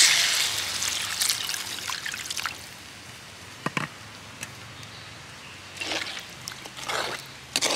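Water poured from a jug into a hot pot of fried tomatoes, chillies and spices, splashing and hissing loudly at first and dying away within about two seconds. After that, a few light clicks of the ladle in the pot over a quiet background.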